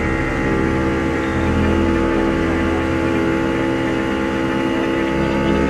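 Outboard motor running steadily at speed, pushing a small boat through the water.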